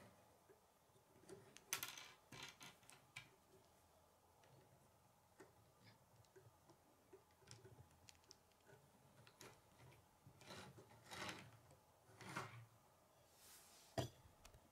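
Faint, irregular clicking and rustling of K'nex plastic rods and connectors being handled and snapped together, with one sharp click near the end.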